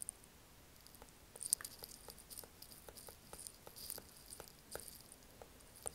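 Faint light ticks and scratches of a stylus tip on a tablet screen while words are handwritten, a dozen or so irregular taps.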